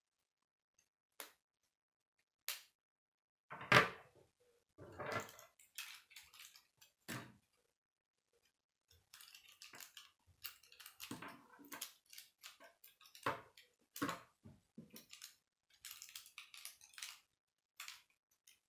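Plastic K'nex rods and connectors clicking and rattling as they are handled and fitted together: scattered short clicks, the loudest about four seconds in.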